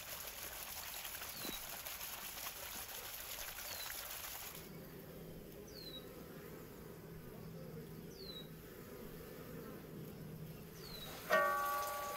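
Honeybees buzzing around flowers near their hives, the buzz coming in after about four and a half seconds over a fading hiss of running water, while a bird repeats a short falling chirp. Near the end a metal cauldron lid clangs and rings as it is lifted.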